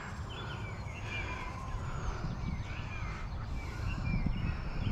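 Gusty wind buffeting the microphone, with the faint high whine of the UMX Eratix's small electric motor and propeller drifting slowly up and down in pitch as the plane flies. Birds chirp in the background.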